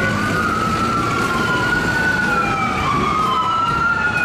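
Ambulance siren wailing, its pitch rising and falling slowly, over the noise of street traffic.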